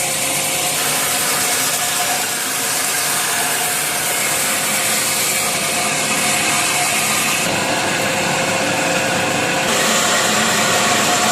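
Iron Cut 1000 horizontal metal-cutting band saw running with a steady hiss and a whine, its band blade sawing through metal stock. The high part of the sound changes abruptly a few times, about one, five, seven and ten seconds in.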